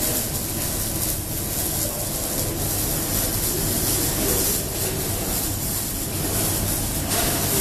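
Electric arc welding: the arc gives off a steady crackling hiss, with a low hum underneath.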